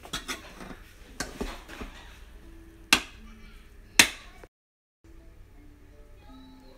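Spoon stirring and scooping cooked rice in a rice cooker pot, scraping against the pot, then two sharp knocks about a second apart, the loudest sounds. After a brief dropout, faint music with short held notes.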